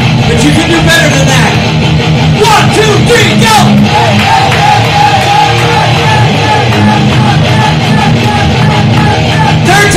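Loud heavy metal music played live: distorted electric guitar with yelled vocals, continuous throughout.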